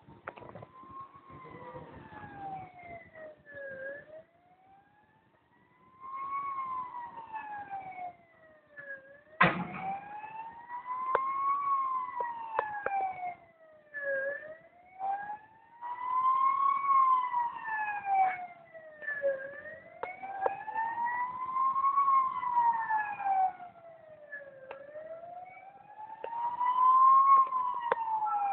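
Fire engine siren wailing as it approaches, its pitch sliding slowly up and down about once every five seconds and growing louder. A single sharp thump about nine seconds in.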